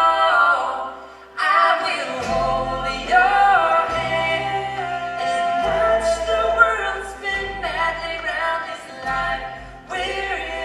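Live pop-folk band music: several voices holding sung notes in harmony, sliding between pitches, over steady low bass notes.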